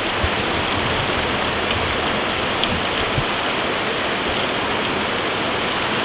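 Small waterfall spilling in thin streams and drips over a mossy rock ledge onto the rock below, a steady splashing rush of water.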